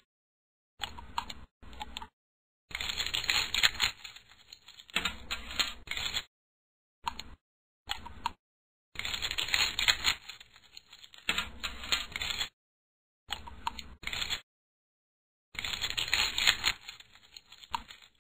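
Cartoon sound effect of skeleton bones clattering and rattling. It comes in bursts of fast clicks, some under a second and some a few seconds long, with dead silence between them.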